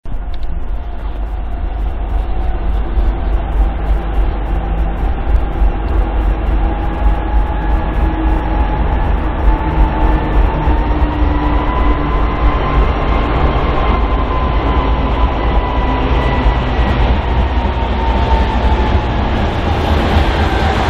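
BNSF diesel freight locomotives approaching, a steady loud engine rumble with a faint whine that slowly rises in pitch and then eases back down near the end.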